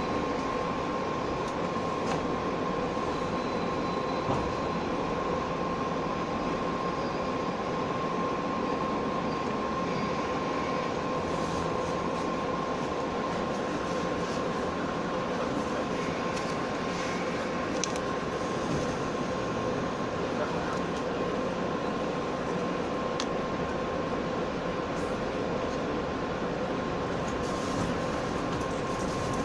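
Steady running noise inside a JR West 117 series electric train, with a constant hum over an even rush of noise.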